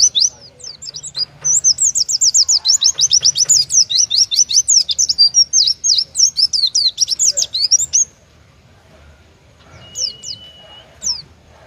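Oriental white-eye singing its fast burst song: a rapid stream of high, steeply falling notes, about ten a second, that runs for some six seconds and then stops. A few scattered notes and one short steady whistle follow near the end.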